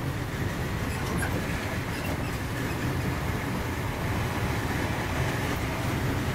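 Steady rumble of a Mark 3 coach of a High Speed Train running at speed, heard from inside the coach, with a few faint clicks from the wheels and track.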